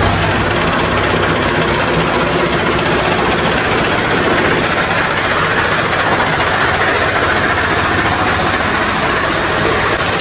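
Tractor's diesel engine running steadily at idle, a loud, even rumble.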